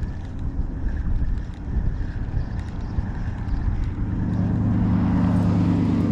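Wind buffeting the microphone, a rumbling low noise. In the last two seconds a steady low hum builds under it and cuts off abruptly at the end.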